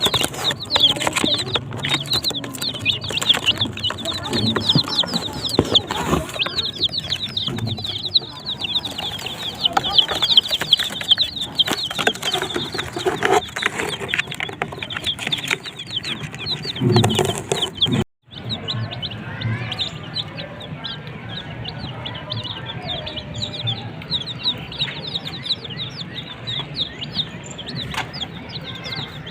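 A brood of desi chicken chicks peeping continuously: many short, high chirps overlapping without pause. The peeping breaks off for a moment about 18 seconds in, then carries on.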